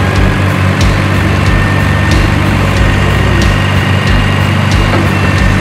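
Huina 1550 remote-control model excavator running: a steady low mechanical drone with a faint whine above it and scattered sharp clicks.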